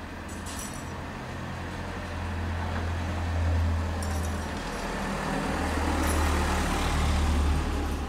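Road traffic passing close by on a narrow street: a car and then a small van go past, their engine and tyre noise swelling twice over a steady low rumble.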